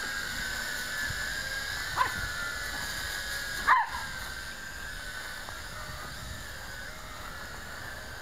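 YiZhan Tarantula X6 hexacopter's six motors and propellers whining steadily in flight, the pitch wavering slightly as it holds position. A dog yelps twice, about two seconds in and again near four seconds.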